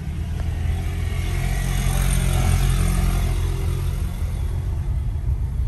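Car engine and road noise heard from inside the cabin while driving slowly, a steady low rumble that swells a little around the middle.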